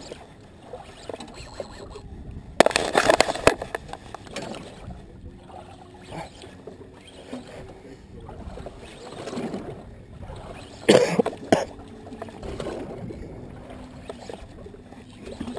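Water sloshing and lapping against the hull of a small boat, with two loud short bursts of noise, about three seconds in and about eleven seconds in.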